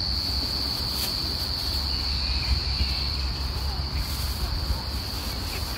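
Steady high-pitched insect chorus, an unbroken drone, over a low rumble.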